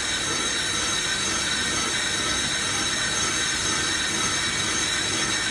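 Brake lathe cutting a spinning brake disc: the tool bit scrapes the metal with a steady, high metallic squeal over the motor's hum. The disc is badly warped, and the cut has not yet reached its low, dark patches.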